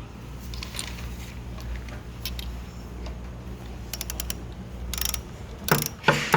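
Ratchet wrench with a 14 mm socket clicking as it works on the spin bike's crank arm bolt, with short runs of quick ratchet clicks and louder metal clicks near the end.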